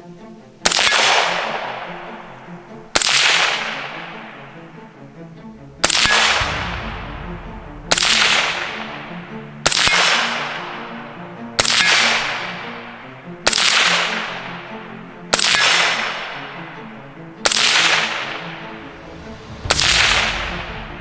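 Ten single shots from an AR-15 rifle firing .223 FMJ, about two seconds apart. Each is a sharp crack that trails off over a second or more.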